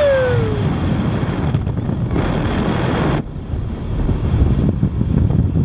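Outboard-powered fishing boat running fast over open water: wind buffets the microphone over the rush of water and engine rumble. A voice trails off in the first half second, and the sound changes abruptly at a cut about three seconds in.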